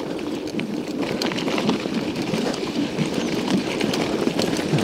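Scott Montana mountain bike being ridden over a very rough, broken road: the tyres rumble steadily while the bike rattles and clatters with many short sharp knocks as it jolts.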